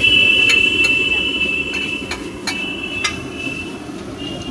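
Metal spatula striking and scraping a large flat griddle while tossing chowmein noodles: a sharp clang right at the start rings on for about two seconds, then several lighter clinks and a second ringing clang about halfway through, over a steady low background noise.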